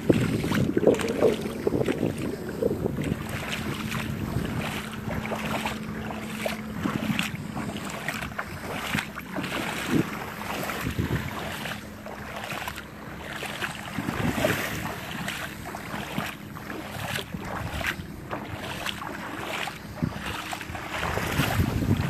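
Gusting wind buffeting the phone's microphone over small Gulf waves lapping at the shoreline.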